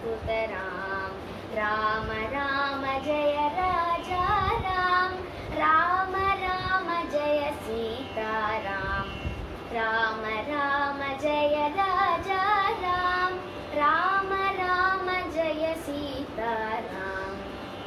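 A girl singing solo in Carnatic style, one voice sliding and ornamenting between held notes, with short pauses for breath.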